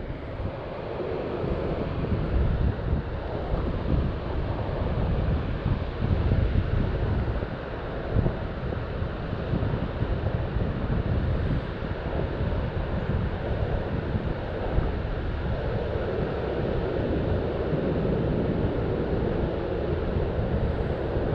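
Wind buffeting the microphone in uneven low gusts, over a steady rushing noise of high-running river water.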